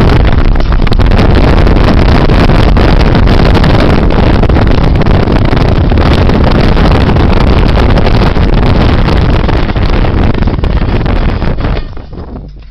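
Loud, distorted rush of wind and road noise from a fast-moving vehicle, overloading the microphone, with no distinct engine note. It falls away sharply about a second before the end.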